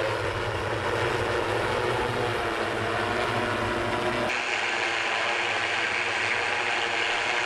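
The Jetson One personal electric multicopter's eight brushless motors and propellers running steadily in a hover, a droning hum of several steady tones. About four seconds in it switches abruptly to a higher, hissier rush of propeller wash, as heard from the pilot's seat.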